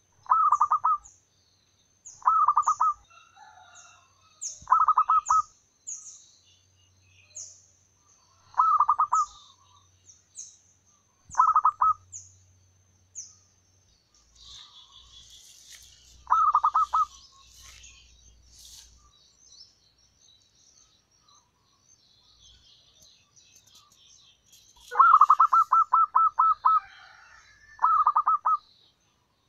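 Zebra dove cooing in short rolling bursts of rapid staccato notes, eight times, with the longest burst near the end. Another bird gives thin, high, repeated chirps through the first half, and other small birds twitter faintly in the middle.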